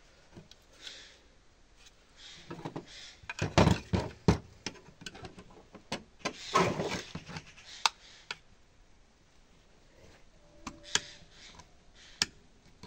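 Metal parts of an LCD monitor's stand hinge clicking, knocking and scraping as they are worked apart by hand on a metal table, with louder knocks in two clusters, a third of the way in and near the middle, and a brief squeak later on.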